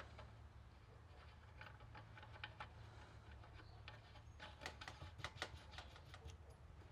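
Faint, irregular small metallic clicks and ticks as the water pump impeller of a Yamaha YZ250 two-stroke is threaded back onto its shaft by hand, the clicks thickest a little past the middle, over a low steady hum.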